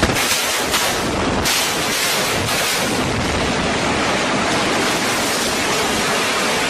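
Controlled demolition of a steel-frame building: a few sharp blasts from the charges in the first second and a half, then a steady rushing noise as the frame collapses.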